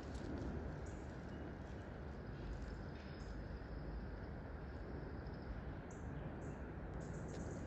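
Outdoor garden ambience: a steady low rumble and hiss with faint, short, high bird chirps scattered through it.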